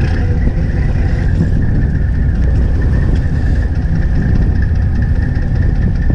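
Fishing boat's engine running steadily, a constant low rumble with a thin steady whine above it.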